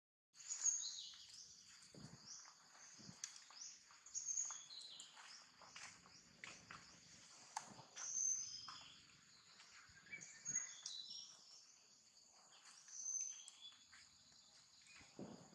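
Outdoor ambience of small birds chirping, with repeated short high calls, over a faint insect hum. A few soft rustles or taps are scattered through it.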